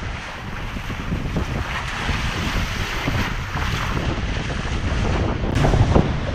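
Sea water rushing and splashing along a sailing catamaran's hull and bow as it sails through open ocean, with wind buffeting the microphone. About five and a half seconds in the sound changes abruptly and a steady low hum comes in under the wind.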